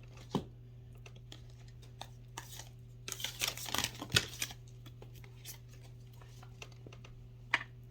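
Oracle cards being handled and shuffled: scattered light taps and rustles, with a cluster of quick rasps about three to four seconds in and a sharp tap near the end. A steady low hum sits underneath.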